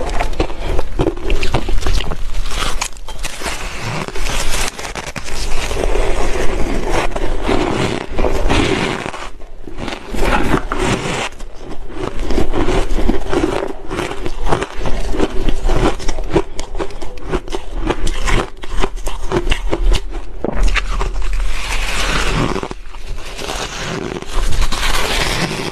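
Close-miked crunching of shaved ice being bitten and chewed, in rapid crackling bursts with short pauses between bites.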